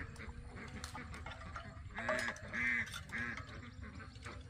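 Ducks quacking in short repeated calls, loudest in a run of three about two seconds in, over a low steady background rumble.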